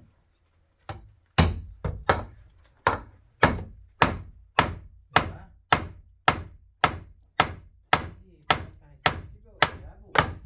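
Repeated sharp blows struck at a steady pace of about two a second, seventeen or so in a row, starting about a second and a half in, each with a short ringing tail.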